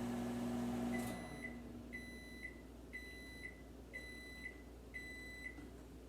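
Microwave oven running with a steady hum that stops about a second in as the timed cycle ends, followed by five high beeps, one a second, signalling that the cooking time is done.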